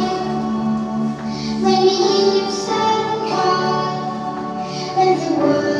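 A song with children's and women's voices singing over an instrumental backing.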